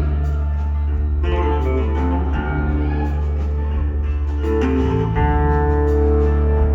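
Live rock band playing an instrumental passage between sung lines: guitars over a steady bass.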